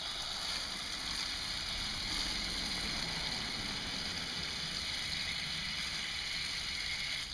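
Water running steadily as the tankless water heater's small inlet strainer is rinsed clean of mineral deposits; the flow cuts off suddenly near the end.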